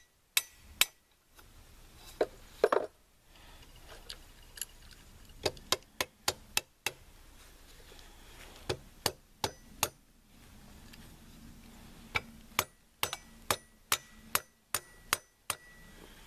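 Sharp metallic taps and clinks, about two dozen at irregular spacing, of a tool striking steel AR-type rifle parts, a few leaving a short ring.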